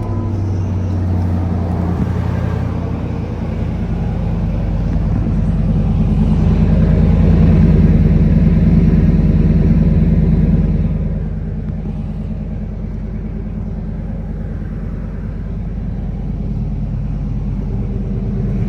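V8 gasoline engine running at idle just after a cold start. It grows louder for several seconds, then drops back to a lower idle about eleven seconds in.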